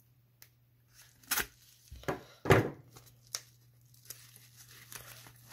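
Yellow paper mailer envelope being handled and torn open: a few short paper rustles and rips, the loudest about two and a half seconds in.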